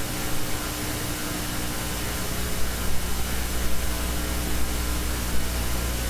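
Steady hiss with a low electrical hum underneath.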